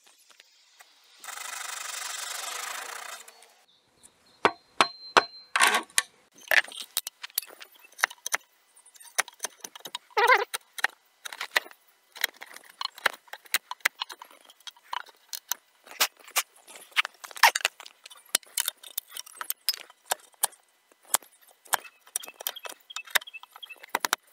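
A hand saw cutting into timber for about two seconds, then a chisel chopping and paring out a notch in the wood: many irregular sharp knocks and clicks, a few of them louder.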